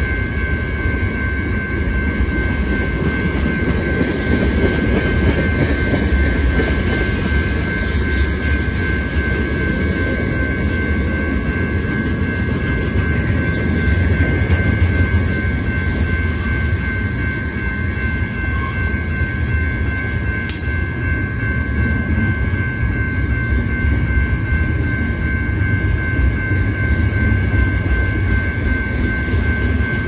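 Freight train cars rolling past close by, a steady rumble of wheels on rail, with a constant high whine held over it.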